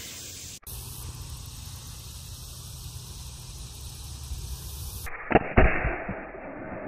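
A Pietta reproduction LeMat black-powder revolver fires a single shot about five seconds in: a sharp report with a second crack a fraction of a second after it, ringing away afterwards. Before it there is only a steady outdoor background hiss.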